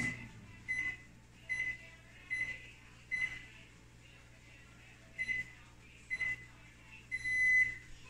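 Panasonic microwave's keypad beeping as its buttons are pressed: a row of short, high beeps about a second apart, then a longer beep near the end as the child lock engages.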